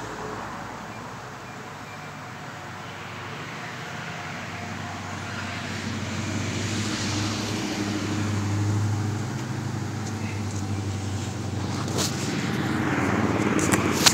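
Road traffic going by, with one vehicle passing loudest about eight or nine seconds in. Near the end, a few knocks and rubbing from the phone being handled.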